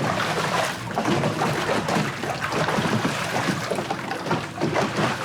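Water sloshing and splashing against a boat's hull, irregular and fairly loud.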